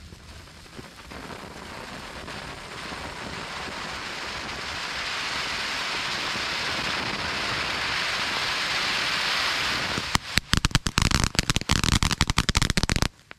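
Ground fountain firework spraying sparks with a steady hiss that builds for about ten seconds. It then breaks into about three seconds of rapid crackling pops and cuts off suddenly near the end.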